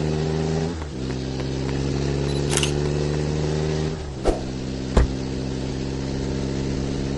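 Vehicle engine idling with a steady hum whose pitch shifts slightly about a second in and again at about four seconds. A few sharp clicks sound over it near the middle.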